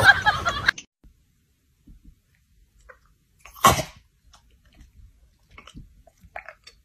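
A pet sneezing once, short and sharp, a little over halfway through, followed by faint small clicks and rustles; the tail of background music cuts off in the first second.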